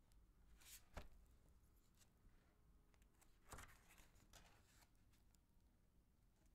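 Faint handling of a paperback book: a soft paper swish and a light tap about a second in as the cover opens, then a larger swish about three and a half seconds in as a page is turned, with small paper rustles after.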